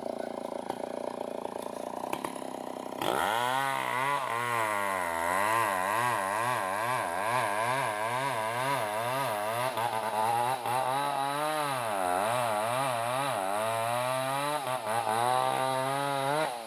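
Stihl two-stroke chainsaw cutting into a timber log at full throttle, its engine pitch rising and falling over and over as the chain bites and frees. It is quieter for the first three seconds, then comes in loud suddenly.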